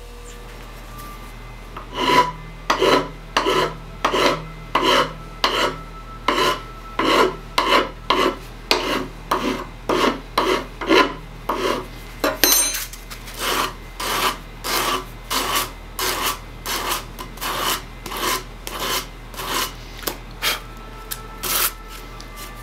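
A hand file being stroked back and forth across the edge of a quarter-inch aluminium plate, about three strokes every two seconds, rounding off a corner after rough grinding.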